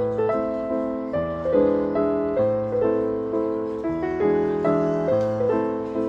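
Background piano music: a gentle melody of single struck notes over held chords, each note fading after it sounds.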